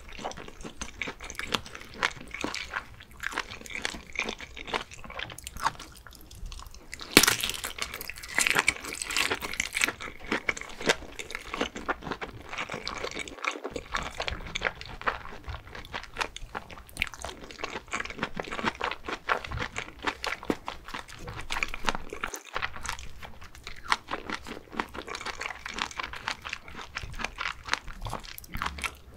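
Close-miked eating of smoked sausages dipped in melted cheese sauce: a loud bite about seven seconds in and another near the end, between them wet chewing full of small crackly clicks.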